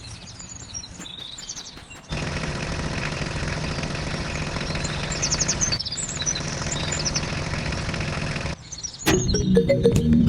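A small motor running steadily with a rattling hum, while birds chirp. The sound cuts off abruptly a few times, and electronic music starts near the end.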